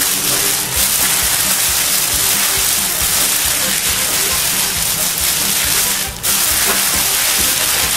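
Clear plastic roasting bag crinkling and rustling as it is handled around a raw pork knuckle, over background music, with a brief lull about six seconds in.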